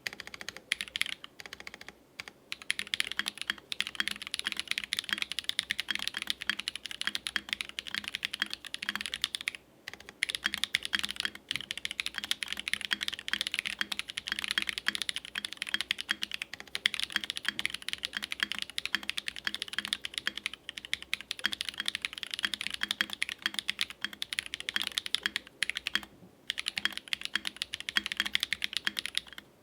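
Continuous fast typing on a custom 65% mechanical keyboard with a polycarbonate case, FR4 plate and lubed and filmed Holy Panda tactile switches, with brief pauses about two, ten and twenty-six seconds in.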